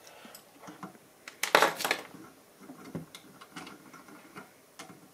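Small plastic clicks and rattles of test leads being handled, caps pulled off and the plugs wiggled into the station's front-panel jacks, with one louder scraping clatter about a second and a half in.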